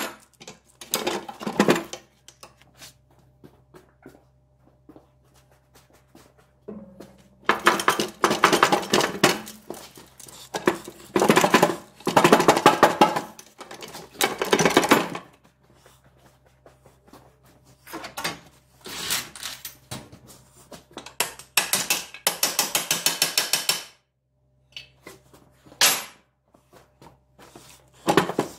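About five bursts of rapid metallic clicking, each one to two seconds long, from a wrench turning bolts during the teardown of a ZF 16S151 truck gearbox. Single clinks of metal parts fall between the bursts.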